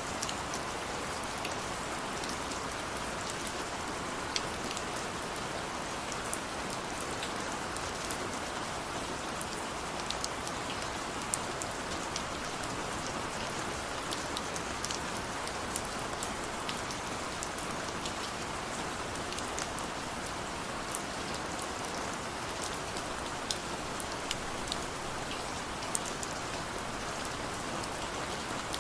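Steady rain falling, a constant hiss with individual drops pattering and ticking sharply on a surface now and then.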